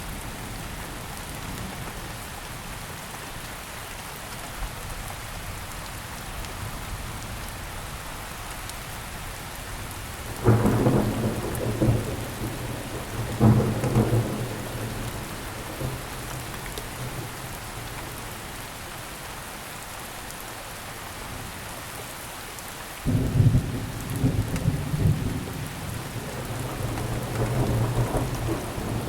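Steady rainfall with claps of thunder: a deep rumble breaks out about a third of the way in, another follows a few seconds later, and a longer rolling rumble runs through the last quarter.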